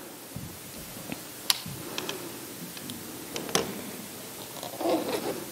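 Quiet room tone with a few scattered sharp clicks, the clearest about a second and a half and three and a half seconds in, and faint rustling near the end.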